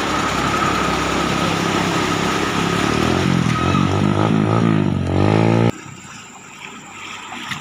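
Engines wading through floodwater: a Hino fire tanker truck runs close past. Then a motorcycle revs, its pitch climbing steadily, until the sound cuts off suddenly a little before six seconds in.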